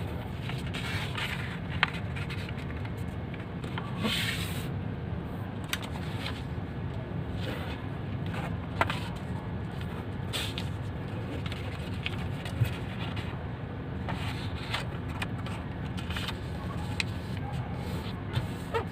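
Sheet of origami paper being folded and creased by hand: scattered crisp crackles and rustles, with a longer rustle about four seconds in. A steady low rumble runs underneath.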